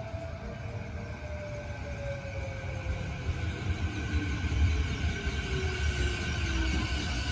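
Sanyo Electric Railway 6000 series electric train pulling into the station and slowing to stop. Its wheels rumble on the rails, growing louder as it draws alongside, and the traction motor whine falls steadily in pitch as it slows.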